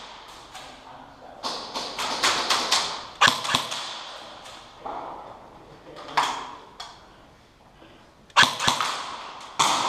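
Airsoft guns firing several short bursts of sharp pops, the loudest group near the end, each pop trailing off briefly.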